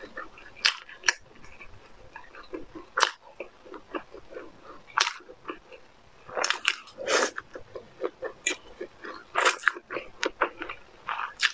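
Close-miked eating of thick noodles: wet chewing and mouth clicks, broken every second or two by sharp, loud slurps as forkfuls of noodles are sucked in.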